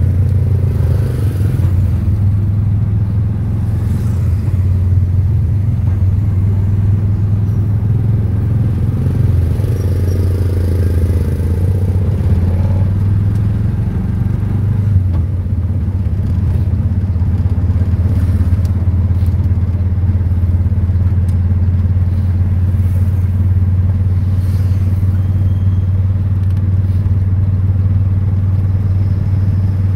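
Tuk-tuk's small engine running steadily as a low drone while under way, with road and wind noise in the open cab.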